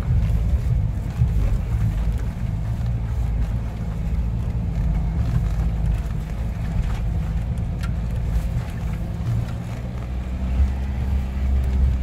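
A vehicle's engine running steadily, heard from inside the cab as it crawls along a rough dirt track, with a few knocks and rattles from the body. It gets a little louder near the end.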